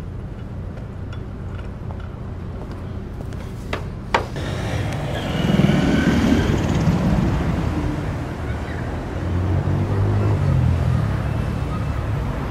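A low steady hum for the first few seconds, then, after a sharp click, night-time city street traffic with cars driving past, swelling twice, the second time as a car goes by near the end.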